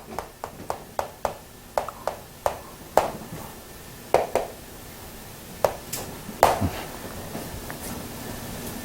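Writing on a board: quick sharp taps of the writing tool, about three a second at first, then a few scattered taps, over a faint steady hum.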